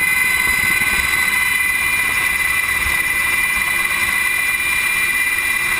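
HH-60 Pave Hawk helicopter in flight, heard from inside the cabin at the open door: a steady, high whine from its twin turboshaft engines and gearbox over a constant rush of rotor and wind noise.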